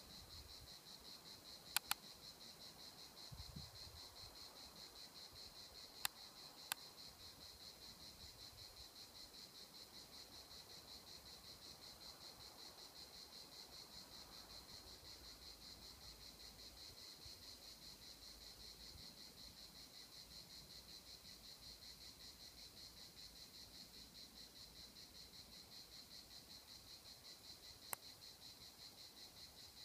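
Faint, steady high-pitched insect chorus with a fast pulsing rhythm. A few sharp clicks cut through it: two just before 2 s, two around 6 to 7 s, and one near the end.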